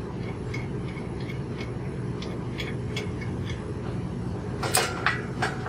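Bicycle bottom bracket cone nut being spun off its threads by hand, giving faint even ticks about three a second, then light metal-on-metal clinks near the end as the cone and bearing parts are lifted off. A steady low hum runs underneath.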